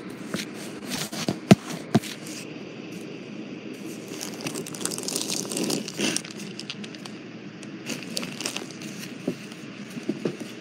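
Handling noise close to the microphone: two sharp knocks about a second and a half and two seconds in, then rustling and crinkling, with scattered clicks near the end.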